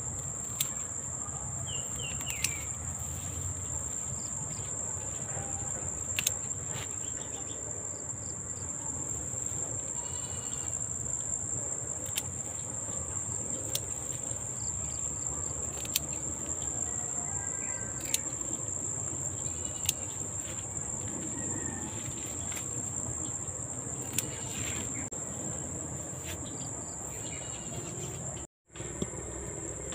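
Insects trilling in one continuous high-pitched buzz, with sharp clicks every few seconds from pruning shears snipping dry seed stalks.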